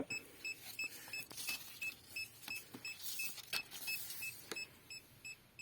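Handheld EMF meter sounding its alarm: rapid short high-pitched beeps, about three to four a second, warning of a high field reading near a loaded USB power adapter. Faint handling clicks in between.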